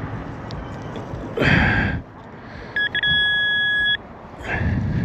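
Metal detector sounding a target: a brief electronic blip, then a steady high beep lasting about a second. Before and after it come two short bursts of scraping rustle.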